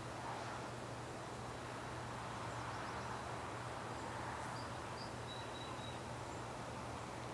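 Steady outdoor evening ambience: an even hiss over a low hum, with a few faint bird chirps about four to five seconds in.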